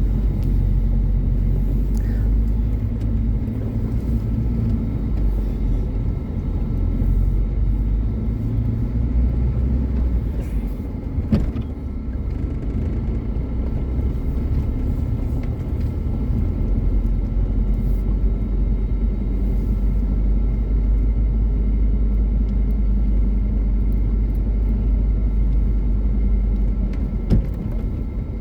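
Car engine and road noise while driving: a steady low rumble, with a sharp knock near the end.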